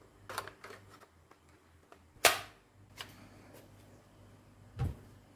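Hard plastic gel blaster parts handled against each other and the cardboard box: a few light clacks, one sharp loud click about two seconds in, and a dull thump near the end.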